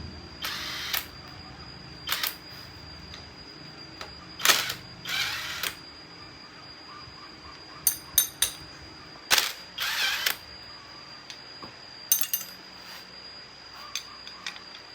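Metal parts and hand tools being handled during the strip-down of a small water pump engine: scattered clicks, clinks and short scrapes, with a few louder knocks in the middle.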